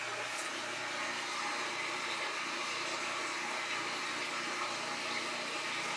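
A household machine running with a steady whir and a low hum.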